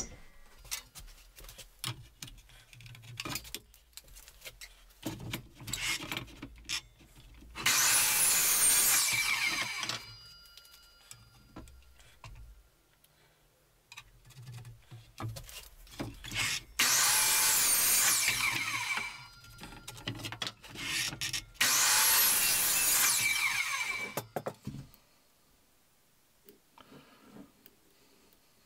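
AEG sliding mitre saw making three cuts through a wooden board: each time the motor spins up, the blade goes through the wood and the motor winds down, with light knocks from handling the board between cuts.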